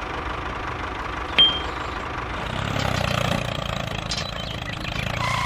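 Tractor engine idling, getting a little louder around three seconds in, with one sharp metallic clink about a second and a half in and a reversing beep near the end.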